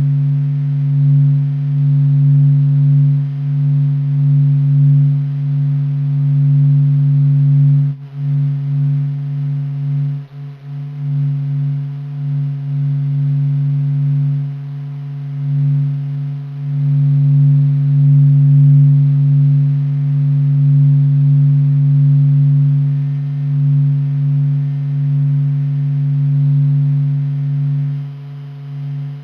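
NASA's sonification of the Sun's vibrations: a steady low hum with a fainter overtone, swelling and fading in loudness, with a couple of brief dips.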